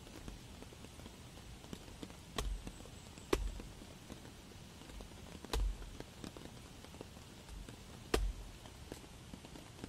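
A hatchet chopping into a wet, rotting log: four sharp strikes at uneven intervals, each with a dull thud, over a steady background of rain.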